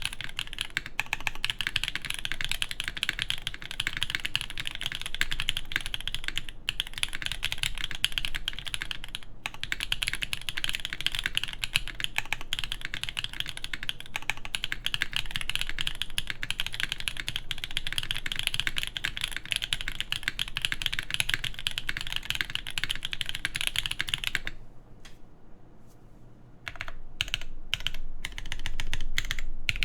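Fast continuous typing on a tenkeyless mechanical keyboard with lubed Black Cherry Pie switches on a full aluminium plate, DCX keycaps and lubed clip-in stabilizers: a dense stream of key clicks. Near the end it breaks off into a short lull with a few single keystrokes, then resumes.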